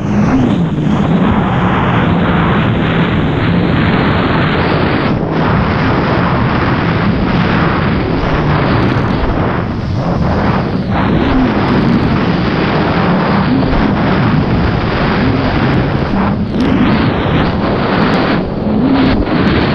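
Jet ski running at speed over open water: a loud rush of wind and spray over the microphone, with the engine's drone underneath rising and falling in pitch as the throttle and waves change.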